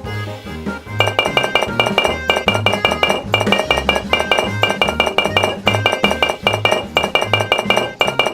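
Background music with a steady beat: bright clinking percussion over a repeating bass line.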